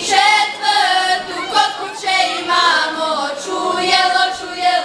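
Women's folk choir singing a Balkan folk song together, several voices at once with no instruments.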